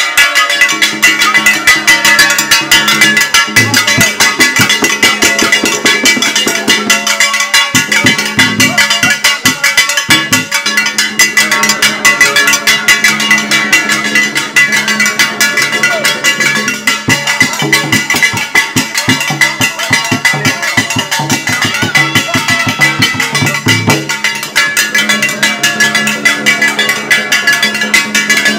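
Rapid, dense drumming for a traditional masked dance, with strikes coming many times a second over a steady low pitched tone.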